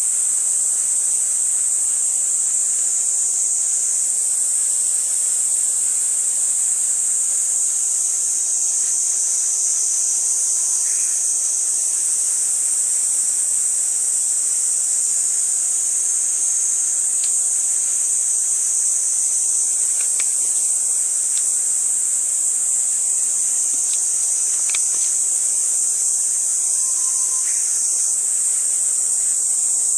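Steady, high-pitched chorus of insects chirring without a break, with a few faint ticks here and there.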